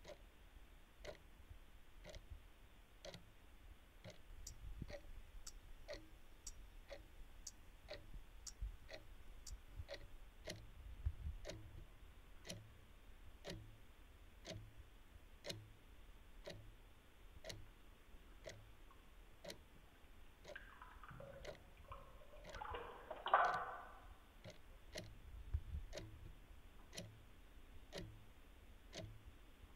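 A clock ticking steadily, about two ticks a second. About two-thirds of the way through, a brief swell of noise rises over the ticking and stops suddenly.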